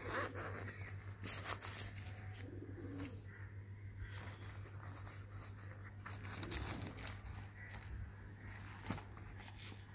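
Handling of a polyester sling bag: the fabric rustles and the metal zipper pulls and buckles clink and click, with one sharp click about nine seconds in.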